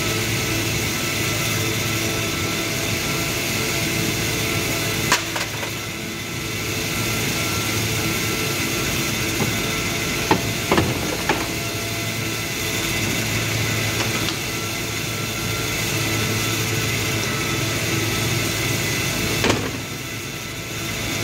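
Steady workshop machinery drone with a low hum and a hiss. Over it come a few sharp knocks and clatters from car body parts being handled in the trunk: one about a quarter of the way in, a quick cluster midway, and one near the end.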